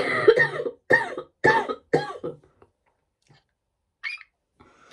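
A woman coughing into her fist, four coughs in quick succession about half a second apart, the first the longest.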